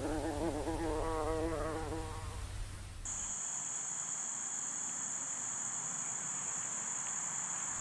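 Bumblebee buzzing in flight, its pitch wavering, for the first two seconds or so. About three seconds in, a steady high-pitched insect call starts and holds unbroken.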